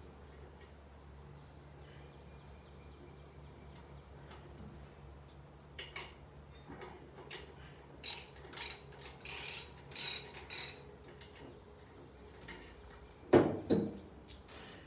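Socket ratchet clicking in short runs of strokes as parts are unbolted from a Chevrolet 350 V8 engine, with one louder knock near the end.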